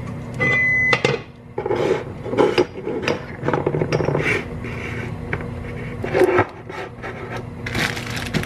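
An electronic kitchen-appliance beep, one steady high tone about half a second long, comes about half a second in. After it come rustling, rubbing and scraping, with light knocks, as food packages and containers are handled and set down on a counter.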